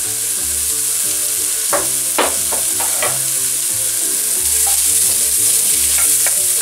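Diced carrots and celery sizzling and frying in hot olive oil in a cast-iron pot, with a few sharp clicks about two seconds in. Near the end a wooden spoon stirs them.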